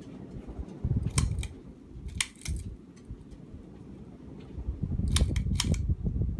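Sharp clicks, one just after a second in, a pair around two seconds, and a cluster near the end, over low rumbling thumps: switch and handling noise as a ceiling fan's control is turned off to start a spin-down.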